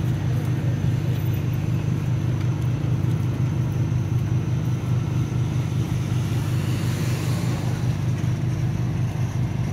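A steady low mechanical hum with a fast, even throb, like a motor or engine running.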